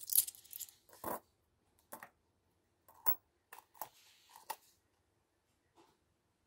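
Metal coins being set down one by one onto a small loudspeaker's cone and onto each other, a string of light, irregularly spaced clicks and clinks.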